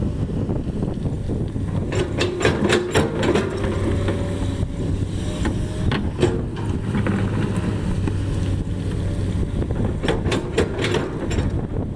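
Heavy diesel construction machinery running steadily with a low hum, with wind buffeting the microphone. Two bursts of clattering knocks come a couple of seconds in and again near the end, with a single knock in between.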